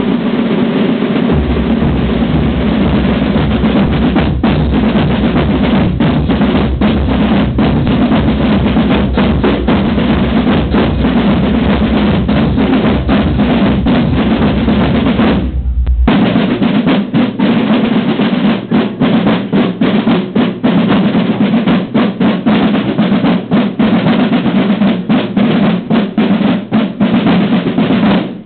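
A corps of Swiss tambours, wooden side drums, played together in fast rolls and strokes. There is a short break about halfway through before the drumming starts again, and it stops near the end.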